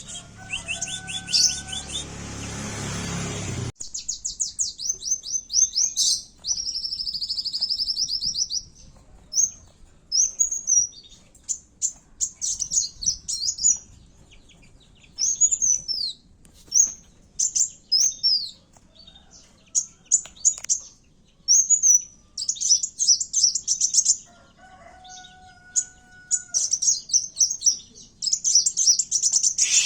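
Kowul (kolibri wulung) sunbird singing in fast bursts of high-pitched chirps and twittering trills: an excited, fighting-style song used as a lure call. A louder, noisier stretch fills the first few seconds, and a short, lower two-note call comes near the end.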